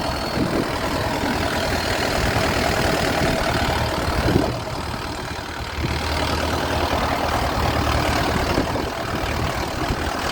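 Boat engine running steadily, easing off briefly about halfway through.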